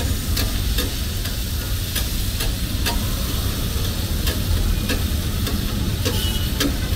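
Liver sizzling as it fries in a pan and is stirred, with sharp knocks about twice a second, over a low traffic rumble.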